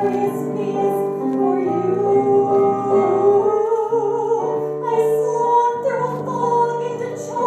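A musical-theatre song: instrumental accompaniment with piano and sustained chords, and a woman singing held notes.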